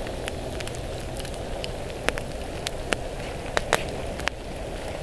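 Wood campfire crackling: a steady low rush with scattered sharp pops, the loudest a close pair about three and a half seconds in.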